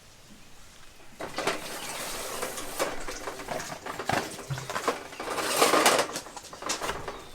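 Dishes and utensils being handled: irregular clinking and rustling that starts about a second in.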